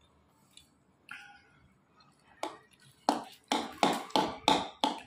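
Metal spatula scraping and knocking against a metal kadhai as paneer sabzi is served out: about six quick, sharp strokes in the second half.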